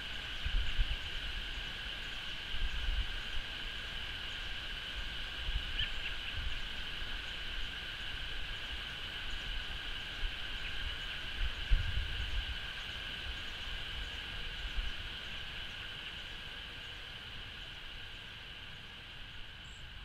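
Outdoor ambience: a steady high-pitched drone that never breaks, with low wind rumbles on the microphone now and then.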